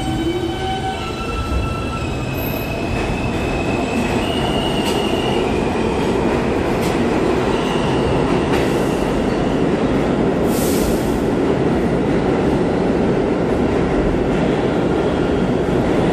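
R160 subway train pulling out of the station. Its electric motors give a whine that climbs in steps over the first few seconds, then a steady, growing rumble of wheels on track fills the tunnel, with a few short hisses about seven to eleven seconds in.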